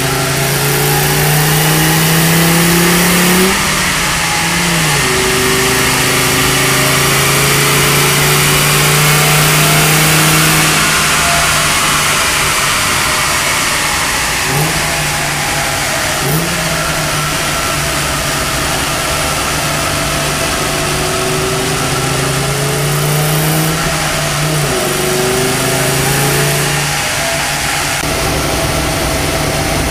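1986 Audi Quattro's turbocharged five-cylinder engine running under load on a rolling road. Its note climbs, then drops sharply about three and a half seconds in, holds steady, dips briefly twice around the middle and drops again near the end, over a steady hiss.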